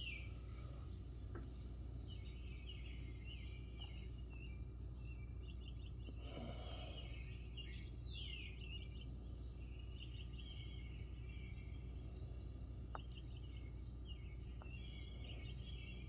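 Birds chirping faintly: many short calls and two falling whistles, one near the start and one about eight seconds in, over a steady low hum.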